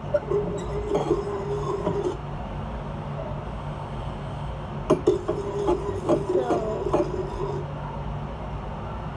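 A mixing tool stirring a thick slime mixture in a bowl, scraping and clinking against the bowl in two spells: one at the start and another about five seconds in.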